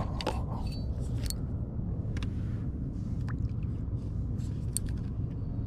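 Handling noise from hands working fishing gear close to the microphone: a few scattered clicks and scrapes over a steady low rumble.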